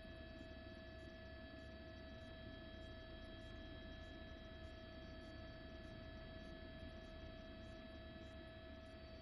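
Faint steady hum with a constant high-pitched whine and nothing else happening.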